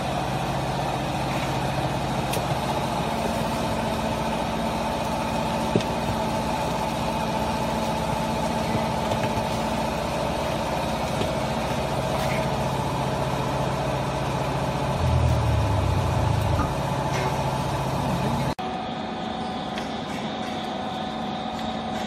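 Vertical hydraulic baler's electric motor and hydraulic pump running with a steady hum. About fifteen seconds in, a deeper, louder drone comes in for about two seconds, and a little later the sound drops abruptly to a quieter hum.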